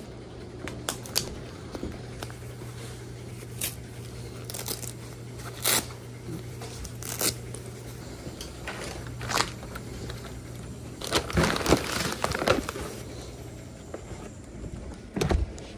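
Rustling and handling noise of a hand-held phone camera and clothing, with scattered light knocks and footsteps while walking. A steady low hum runs underneath and stops about ten seconds in; a denser rustling follows, and a thump comes near the end.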